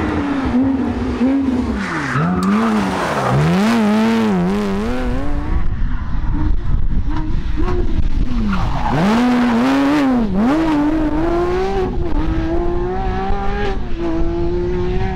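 Porsche 997 GT3 rally car's flat-six engine at full race pace: the revs drop and climb back several times through corners, then rise steadily through one long pull near the end.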